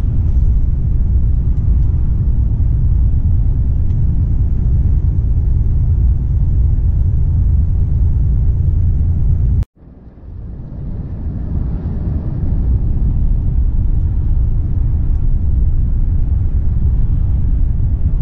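Volvo FH 460 truck's six-cylinder diesel and road noise rumbling steadily while driving. About ten seconds in the sound cuts out for a moment and fades back up over a couple of seconds.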